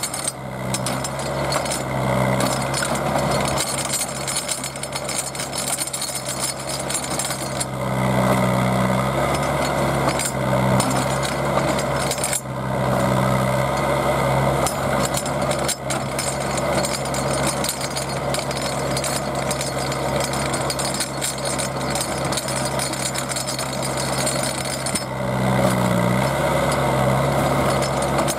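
Small auger drill rig's engine running under load as the auger bores into the ground, with a steady grinding. The engine note swells and eases several times, louder from about eight seconds in and again near the end.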